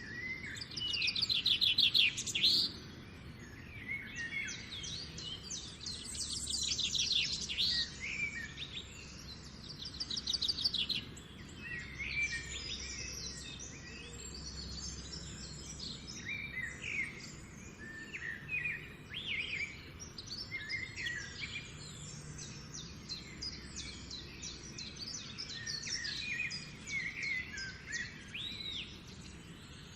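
A chorus of several songbirds singing and calling, with overlapping chirps and fast trills and louder trilled phrases a few times.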